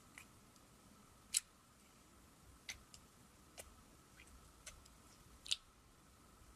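Glitter slime being poked and pressed with fingers in a glass jar, giving about six short, sharp clicks at irregular spacing, the loudest about a second and a half in and just before the end.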